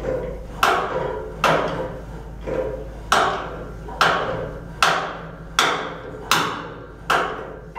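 Hammer blows on a steel boiler stay tube as it is fitted into a Cochran boiler's tubeplate: about nine sharp, ringing metal strikes, a little under a second apart.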